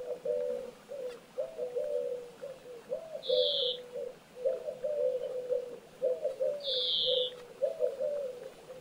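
A pigeon cooing in a continuous run of low, repeated phrases, with two short high calls from another bird, one about a third of the way in and one near the end.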